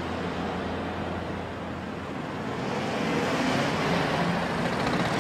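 Motor scooter riding up and passing close by, its engine growing louder over the second half, over steady street traffic.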